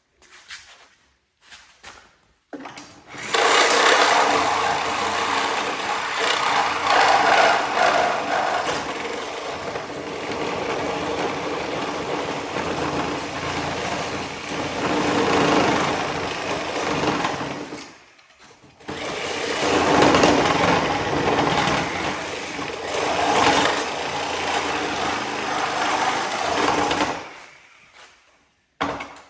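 Power saw cutting through the rusted steel of a 1963 Corvette frame, in two long runs with a brief stop about 18 seconds in.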